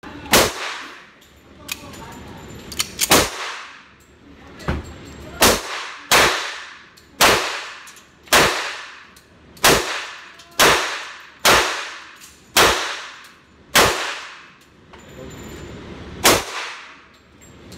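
Pistol shots from a Colt 1911-type handgun in an indoor firing range: about a dozen sharp shots, mostly about a second apart, each with a long echoing tail, with a few fainter cracks between them in the first few seconds.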